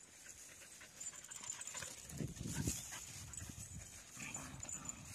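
A Siberian husky and a second dog play-fighting, panting and scuffling, with the loudest rough bursts about halfway through.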